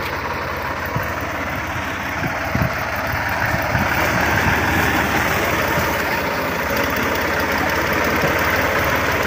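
Ghazi tractor's diesel engine running steadily under load, driving a front-mounted wheat reaper that is cutting standing wheat.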